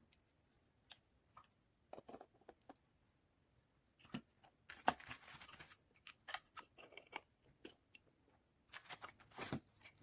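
Faint, scattered clicks and rustling handling noises, with a longer scraping rustle about five seconds in and a cluster of clicks near the end.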